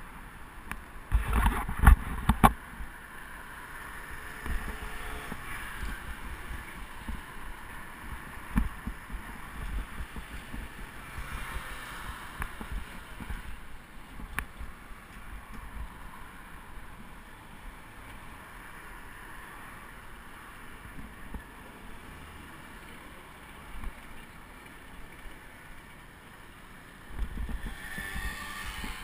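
Steady wind and road noise from a bicycle ride on an action camera's microphone. A few sharp knocks come between one and two and a half seconds in, the loudest sounds in the stretch, and a louder low rumble comes near the end.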